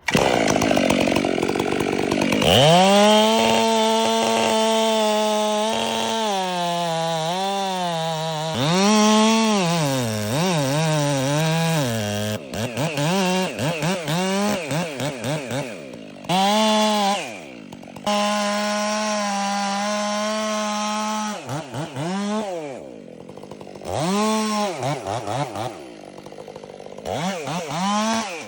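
Two-stroke chainsaw cutting into wood, held at full throttle for several seconds at a time, its revs repeatedly dipping and climbing again as the throttle is eased and squeezed.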